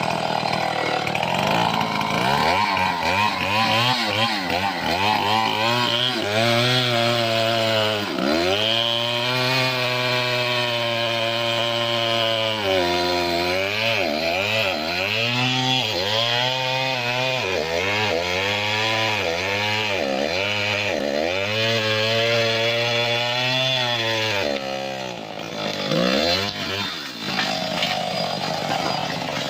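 Two-stroke chainsaw running at high revs and cutting wood, its engine note sagging and recovering again and again as the chain is worked through the cut. About 25 seconds in it drops off, revs briefly once more, then eases back.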